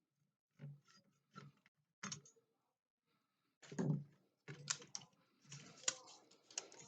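Irregular clicks and light knocks from laptop parts being handled during disassembly: a few spaced ones at first, then a busier run in the second half.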